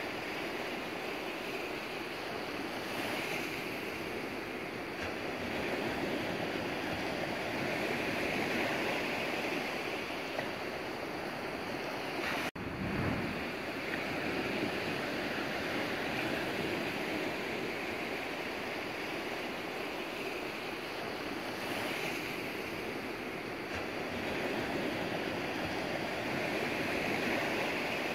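Steady rushing water that slowly swells and eases every few seconds. About halfway through, the sound cuts out for an instant and there is a brief low thump.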